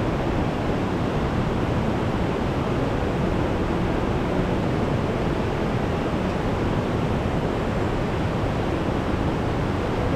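Mountain river rushing over rocky rapids: a steady, even rush of water that cuts off suddenly at the end.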